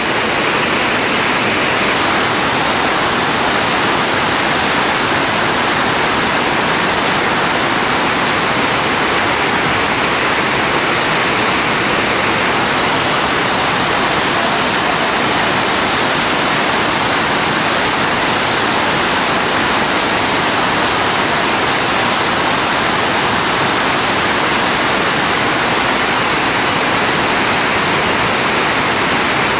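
River rapids: whitewater rushing loudly and steadily over rocks.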